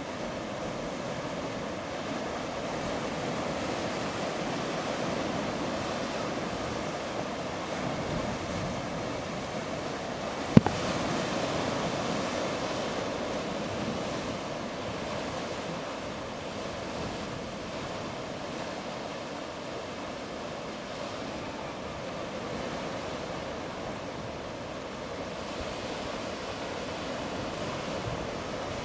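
Sea surf washing into a small rocky cove at high tide: a steady, even wash of waves against the rocks. A single sharp click stands out about a third of the way through.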